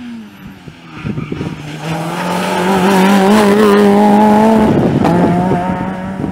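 Citroën Saxo rally car's engine at high revs as the car passes and drives away up a narrow lane: the note builds, holds steady for about two seconds at its loudest, breaks briefly near the end, then picks up again.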